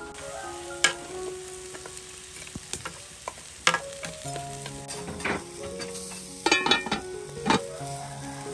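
Pork sizzling on a wire grill, a steady hiss broken by several sharp pops and crackles, most of them in the second half.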